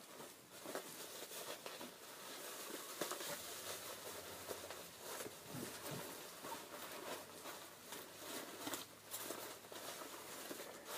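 Faint, irregular rustling and crinkling of paper packing as hands rummage through a cardboard box, with light scattered taps.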